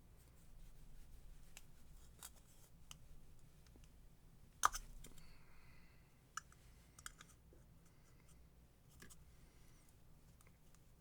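Faint small clicks and scrapes of a pick prying at a hard, set-up seal inside a plastic shower-head swivel housing, with one sharper click about halfway through.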